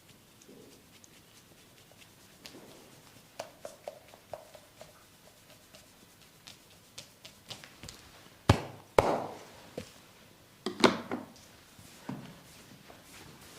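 Hands-on massage: scattered light taps and pats of hands on skin, then a few loud, sharp hits in the second half.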